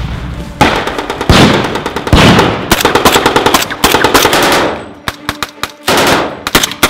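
Machine-gun fire in long rapid bursts, breaking up into shorter bursts and scattered single shots in the last two seconds.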